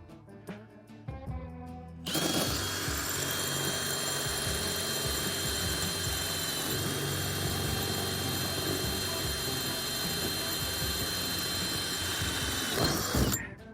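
Power drill running steadily for about eleven seconds, boring with a cobalt bit into the metal mounting plate of a door closer; the motor's whine holds one pitch, dipping slightly about halfway, and stops near the end.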